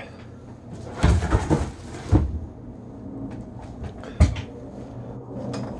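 About a second of rustling noise with several bumps in it, then a single sharp knock about four seconds in.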